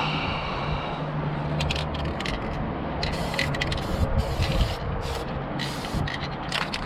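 Aerosol spray paint can hissing in several short bursts, starting about three seconds in.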